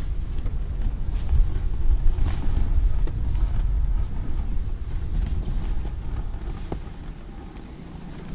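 Gusty wind buffeting the microphone in a low, uneven rumble, with a few faint taps; the gusts ease near the end.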